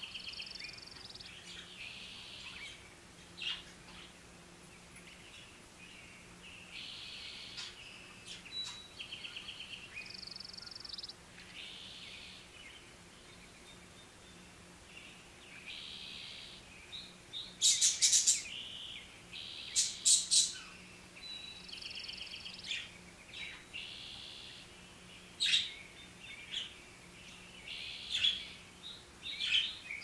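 Budgerigars chattering: short chirps and buzzy, rapidly pulsed warbles, with a few sharp, much louder calls about halfway through, over a faint steady low hum.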